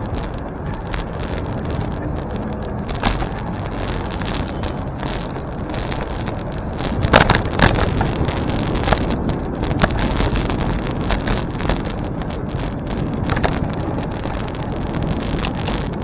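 Wind buffeting the microphone and steady rolling noise while riding a bicycle, with a few sharp rattles or knocks, the loudest about seven seconds in.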